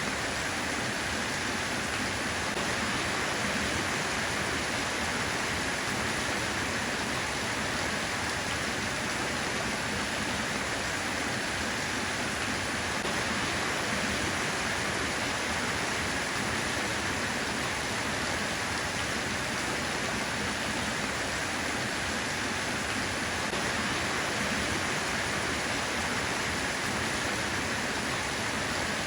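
Steady rain falling, an even, unbroken hiss without distinct drops or thunder.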